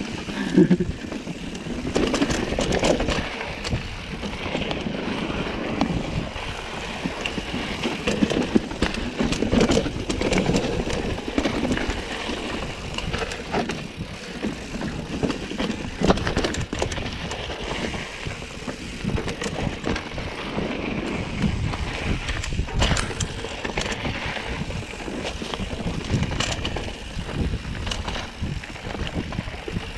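Mountain bike descending a dirt and rock trail: continuous tyre noise on the dirt, with frequent short rattles and knocks from the bike over rocks and roots.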